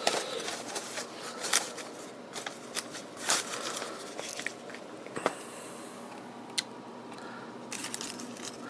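Paper and packaging crinkling and rustling with scattered light clicks, the sound of a radio kit's papers and parts being handled.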